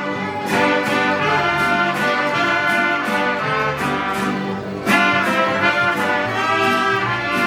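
Mariachi music led by trumpets playing a melody over an accompaniment, with a fresh loud phrase entering about five seconds in.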